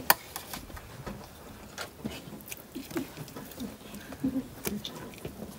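A person eating close to the microphone: chewing guinea pig meat (cuy) with smacking mouth sounds and scattered sharp clicks, the loudest just after the start.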